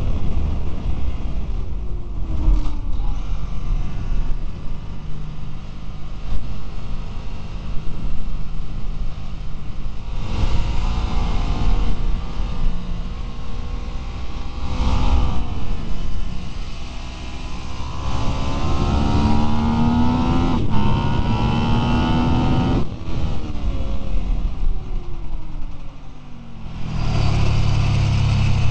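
Ducati 999's L-twin engine heard from an onboard camera during a lap on track, with wind noise throughout. The pitch falls as it engine-brakes into corners, about two seconds in and again near the end. In between it revs up through the gears, and it pulls hard and low out of the last corner.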